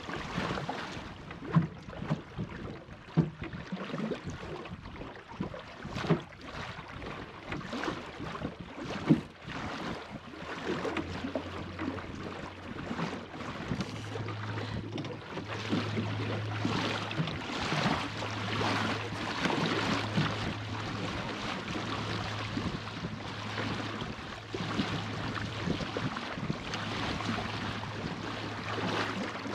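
Water rushing and splashing along the hull of a plywood Goat Island Skiff sailing dinghy under sail in a good breeze, with wind on the microphone and a few sharp knocks early on. A low steady hum comes in about halfway through, broken every second or two.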